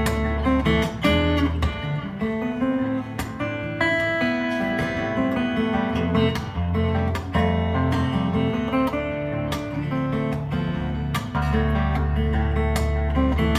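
Solo acoustic guitar played fingerstyle: held bass notes under a picked melody, with sharp percussive hits now and then.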